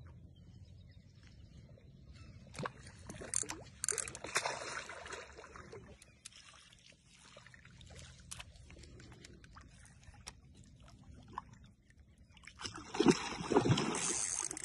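Hooked carp splashing and thrashing at the water's surface near the bank, in two bouts, the louder one near the end.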